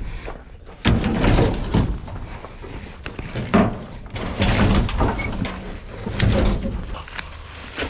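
Dead branches being pulled out of a pickup truck bed, scraping and rattling against the bed and each other, with a few sharp knocks of wood on the truck.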